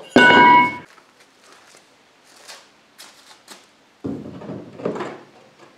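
A short whir from a hand-held power tool pressed against plywood, then a few light clicks. About four seconds in comes a scraping knock as a plywood dashboard panel is pushed into place against the boat's aluminum hull.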